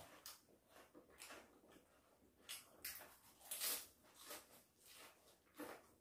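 Faint crisp crunches of a raw lettuce wrap filled with nuts being bitten and chewed, a few scattered crunches, the loudest a little past halfway.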